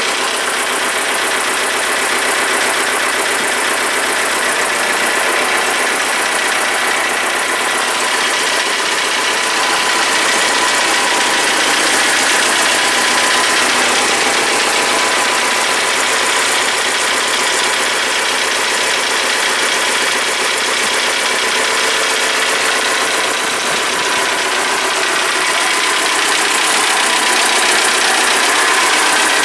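Air-cooled four-cylinder diesel engine of a T-40AM tractor running steadily while the freshly repaired tractor is test-run.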